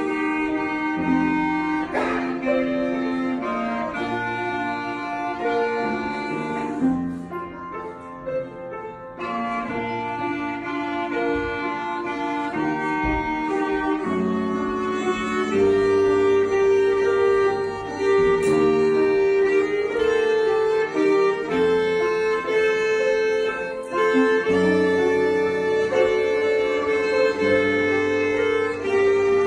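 Live duet of B-flat clarinet and violin playing a slow melody in long, sustained notes, with a softer passage about seven seconds in.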